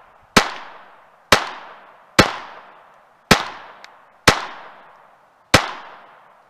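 Glock 44 .22 LR pistol firing CCI Mini-Mag high-velocity rounds: six single shots about a second apart, each followed by a fading echo. The brand-new pistol is cycling without a malfunction.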